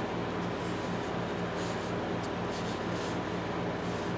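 Cloth rag rubbing and wiping a rusty steel tap handle: short, irregular scuffing swishes over a steady low hum.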